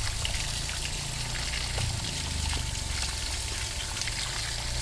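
Running water from a hose spraying onto teak seedling roots, rinsing the soil off and splashing steadily into a plastic crate and onto wet ground, with a low steady hum underneath.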